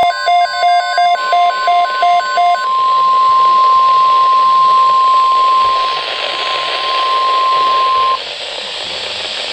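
NOAA Weather Radio emergency alert: the steady 1050 Hz warning alarm tone, one loud unbroken pitch lasting about eight seconds over radio hiss, cutting off suddenly near the end. For the first two and a half seconds it is joined by a quick run of short beeps at two alternating pitches.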